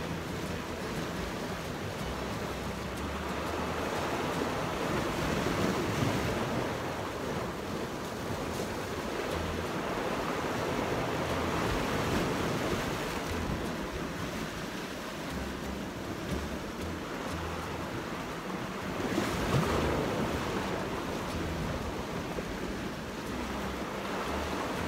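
Sea waves washing over shore rocks, swelling louder three times, with wind buffeting the microphone.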